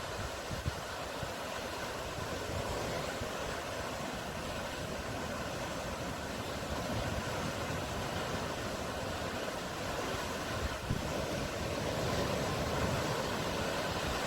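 Sea waves washing onto the shore, a continuous rushing noise that swells slightly near the end.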